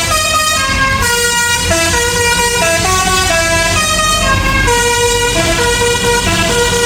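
A bus's multi-tone musical horn playing a tune of short stepping notes, often several pitches at once, over a low engine rumble.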